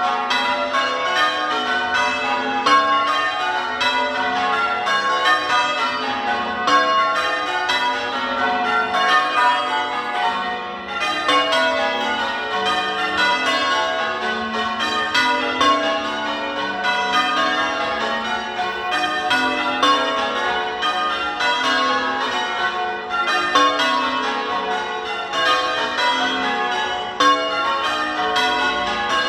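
Church tower bells being change-rung: a steady, unbroken stream of evenly spaced bell strikes, each bell ringing on into the next.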